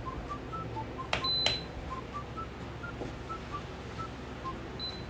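Sparse short background music notes, with a click, a short high electronic beep and another click about a second in: a microcontroller humidifier's control panel being pressed to start it.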